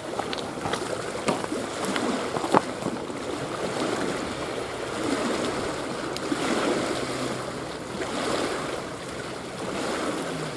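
Small waves lapping and splashing against a rocky lake shoreline, driven by an onshore wind, with a few sharp splashes in the first few seconds.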